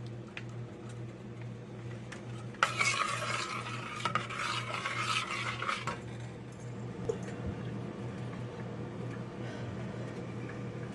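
A spoon stirring a thick cheese sauce in a pot, scraping against the pot, most busily for about three seconds a few seconds in, with small clinks after. A steady low hum runs underneath.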